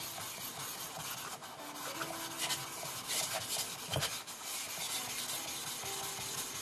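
Wet Shapton Glass whetstone being rubbed back and forth on a diamond lapping stone, a steady gritty scraping as the stone's surface is lapped flat, with one sharp knock about four seconds in.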